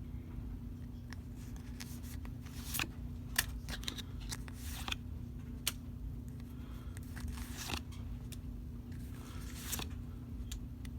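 Foil wrapper of a Pokémon booster pack crinkling and tearing as it is worked open by hand, in scattered short crackles over a steady low hum.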